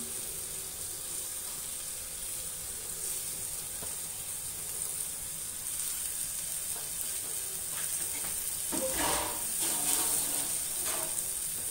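Goat lung pieces sizzling steadily in hot oil and masala in a kadai, the wet pieces just added, with a few brief clatters about nine to eleven seconds in.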